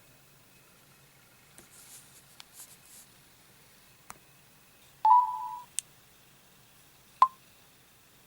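Smartphones being handled between calls: faint taps and clicks, then a short, loud electronic beep from a phone speaker about five seconds in, and a sharp click near the end.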